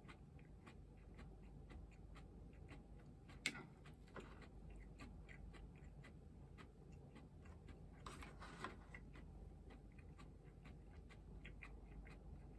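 Faint, quick crisp clicks of shredded raw cabbage being chewed, with one sharper click about three and a half seconds in and a short rustle around eight seconds.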